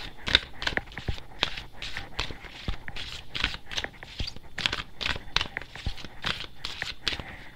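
Tarot deck being shuffled by hand: repeated short papery slaps and rustles of the cards, about two or three a second.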